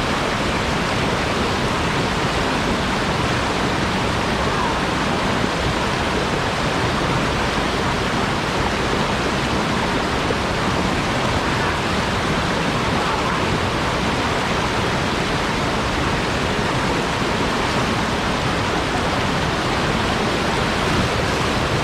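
Rushing river water, a steady unbroken noise with no rhythm or distinct events.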